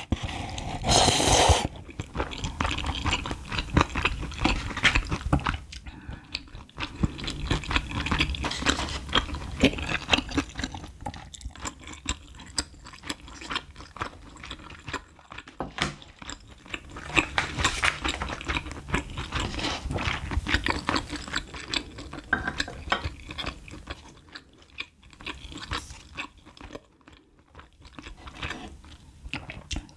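Close-miked eating sounds from drinking leftover cup-ramyeon broth straight from the bowl: a loud slurp in the first two seconds, then chewing and wet mouth sounds that grow quieter near the end.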